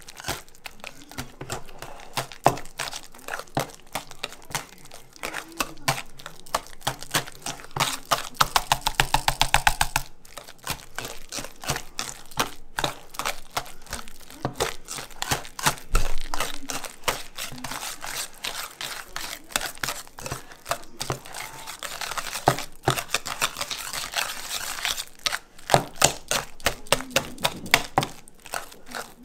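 Wire whisk beating mashed potatoes in a stainless steel bowl: quick clicks and taps of the wires striking the metal, mixed with the soft squish of the mash. About eight seconds in comes a fast, even run of strokes for a couple of seconds.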